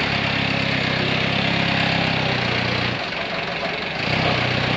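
Engine of a 500-litre concrete mixer running with a steady low hum and a constant clattering hiss. The low hum drops away for about a second a little past the middle, then returns.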